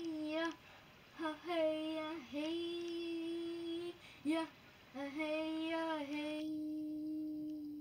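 A young girl singing backing vocals: a few phrases of long, steady notes with short breaks between them, ending on one note held for nearly three seconds.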